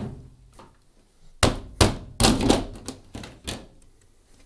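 Washing machine top panel being worked loose and lifted off the cabinet: a run of thunks and clattering knocks, loudest in the middle.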